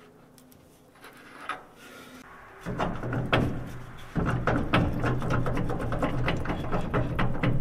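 Metal clinks, knocks and rattles of tools and parts as a tapered-roller trunnion bearing is worked out of its housing. About a third of the way in, a steady low machine hum starts and runs under them.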